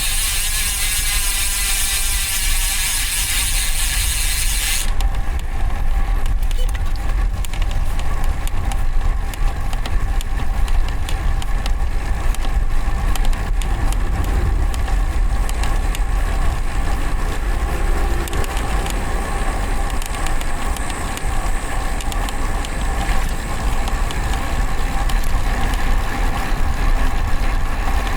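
Road bike in motion, heard from a bike-mounted camera: steady wind rumble on the microphone with the ratcheting buzz of the rear hub freewheel and drivetrain. A high hiss cuts off suddenly about five seconds in.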